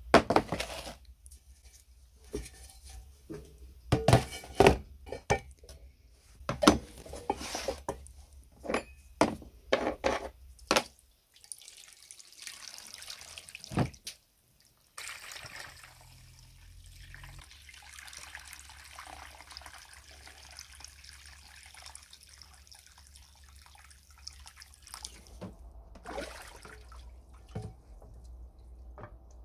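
A series of clunks and knocks as heavy rusty iron parts are set down into a plastic tub. Then, about halfway through, water from a garden hose starts running into the tub with a steady splashing hiss as it fills.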